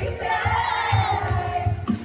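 Live pop concert: a crowd singing along loudly over the band, with a steady kick-drum beat and one woman's voice singing close to the microphone.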